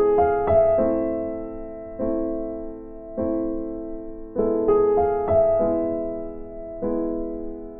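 Background piano music: slow chords that ring and fade, struck about once a second, with a few quicker notes in between.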